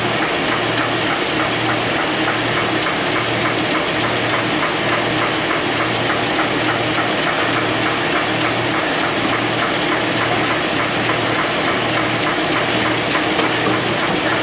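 Industrial paper-processing machine running steadily: a rapid, even clatter of its moving parts over a low hum that pulses about once a second.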